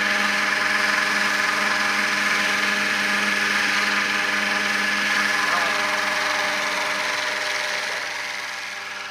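Radio-controlled scale AS350 helicopter hovering, its motor and rotors making a steady high whine over a lower hum. The sound fades over the last couple of seconds as it flies away.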